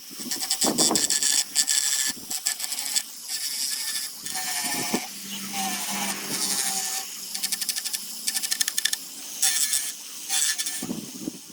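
Handheld power tool working wood in repeated passes: a dense, rapid scratching, with the motor's pitch dipping and recovering as it bites.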